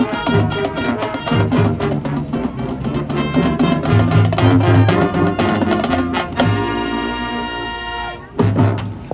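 Marching band playing brass over drums. About six and a half seconds in, the brass hold one long chord. It breaks off a little after eight seconds, and the drums come back in with heavy hits.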